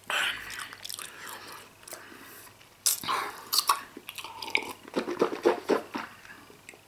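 A man chewing and swallowing a mouthful of Emmentaler cheese, with sips of water from a cup to wash it down. These are close, irregular wet mouth sounds, loudest near the start and through the second half.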